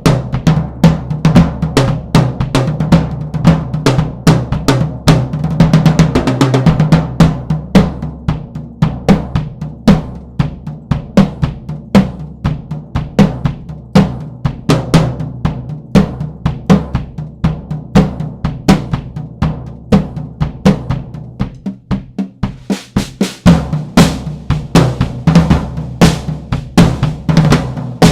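Pearl Export drum kit played continuously in grooves and fills, its floor tom fitted with a new Evans 56 Calftone head, the thin, fibre-textured head being heard in a sound test. The cymbal hits crowd in during the last few seconds.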